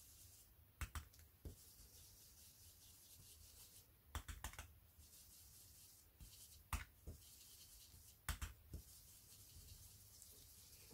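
Faint, short taps and rubs of ink being dabbed through a thin plastic stencil onto paper, a few scattered strokes with a quick cluster about four seconds in.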